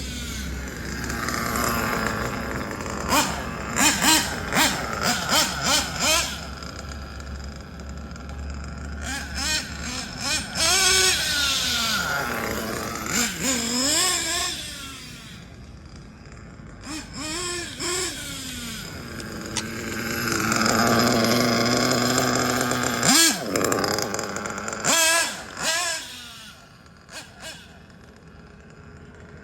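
Nitro engine of a Kyosho Inferno NEO ST 3.0 radio-controlled truggy running and revving up and down repeatedly, its pitch rising and falling with short surges of throttle.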